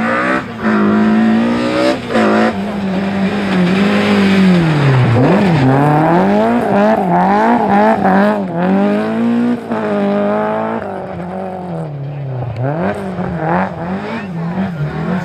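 Rally car engine revving hard, held steady at first, then rising and falling in quick succession as the throttle is worked, with some tyre squeal; it drops back for a moment before a few more blips near the end.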